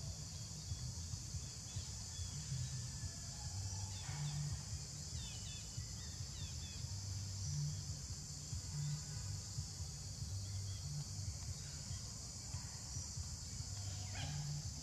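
Forest ambience: a steady high-pitched insect drone, with a few faint bird chirps about four to seven seconds in and a low rumble underneath.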